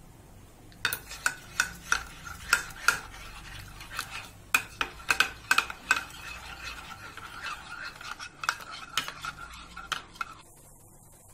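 Steel spoon stirring milk powder and water into a paste in a small bowl, clinking irregularly against the sides several times a second over a light, steady ringing of the bowl. The stirring stops about ten seconds in.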